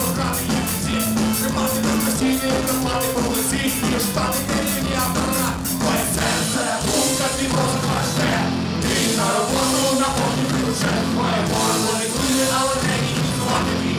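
Live rock band playing loudly on stage, with guitar and drums. A cymbal beats about four times a second through the first six seconds, then the arrangement changes.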